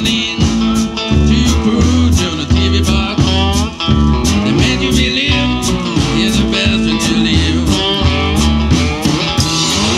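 Live Delta-style blues band playing homemade cigar-box guitars over a steady beat and bass, with a man singing into the microphone.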